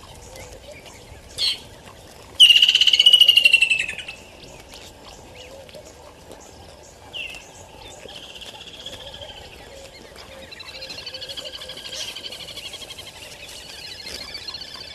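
Red-billed oxpecker calling: a brief note, then a loud, harsh rattling call lasting about a second and a half, followed later by shorter calls and a long stretch of softer chattering.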